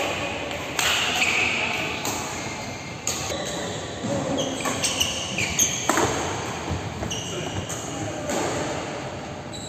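Badminton rally in a large echoing hall: sharp racket strikes on the shuttlecock every second or so, with short high squeaks from players' shoes on the court mat and voices in the background.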